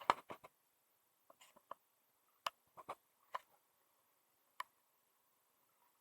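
Irregular light clicks and taps: a quick cluster right at the start, then single clicks and short pairs spaced out up to nearly five seconds in.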